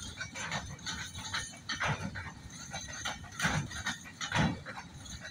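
Container wagons of a freight train rolling past at low speed, their wheels knocking and rumbling over the rail joints in uneven strokes about twice a second.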